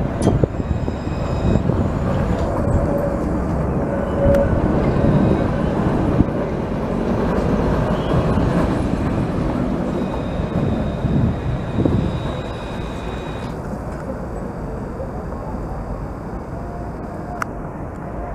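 Alstom Citadis low-floor tram passing close by, a steady rumble of its running gear on the rails mixed with street traffic. The noise drops to quieter street background about twelve seconds in.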